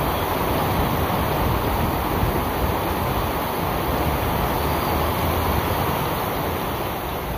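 Heavy monsoon rain pouring onto a flooded road, a dense steady hiss, with a low rumble of motor traffic driving through the standing water.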